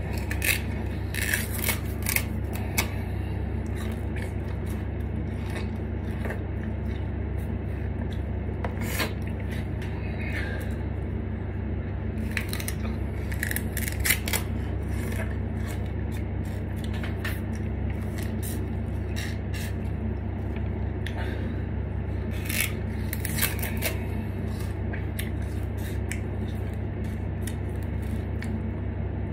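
Raw sugarcane stalk being bitten and chewed: irregular crisp cracks and crunches as the teeth tear through the stalk and chew the fibres to get the juice out. A steady low hum runs underneath.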